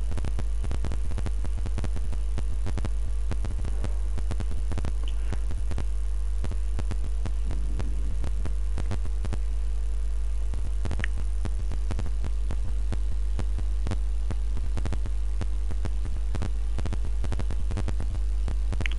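Steady low hum with faint scattered clicks.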